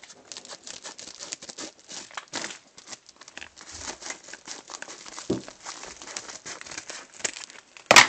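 Packaging being torn open and crinkled by hand, with a steady run of irregular crackles and rustles. A single loud knock comes near the end.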